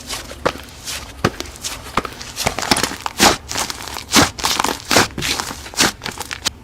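Slime being squished and pressed, giving a dense, irregular run of sharp crackles and pops.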